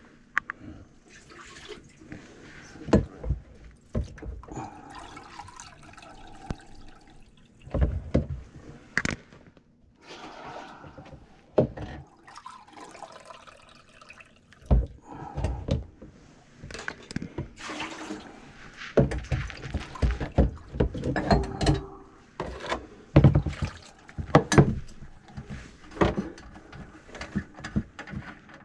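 Irregular knocks and clatter with liquid sloshing and gurgling as a drum drain auger's cable is worked into a kitchen sink drain clogged with grease.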